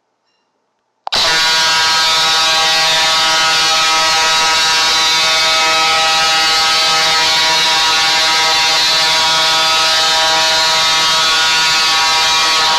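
A loud, harsh, steady buzz played as an annoying ringtone sound effect. It starts abruptly about a second in and holds unchanged.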